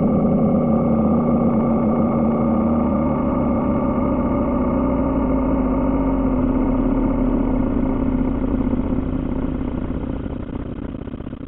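A steady, rumbling drone with a low hum running through it, easing down a little near the end. It is offered as a space sound of Pluto recorded by the New Horizons spacecraft.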